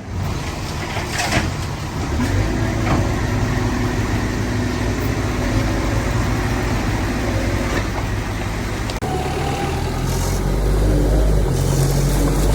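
Heavy diesel earthmoving machinery, bulldozer or dump truck engines, running with a steady low drone. The sound changes abruptly about nine seconds in.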